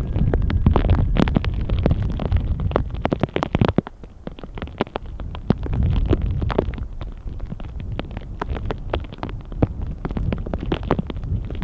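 Strong wind buffeting the microphone in a deep, gusting rumble, with a dense scatter of sharp clicks typical of hailstones striking near the microphone in a hailstorm. The rumble drops away about four seconds in and builds again toward the end.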